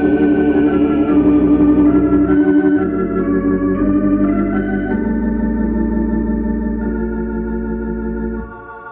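Organ playing slow sustained chords over a deep pedal bass in a 1960s gospel song recording, with no voice. The chords shift every second or so and die away shortly before the end.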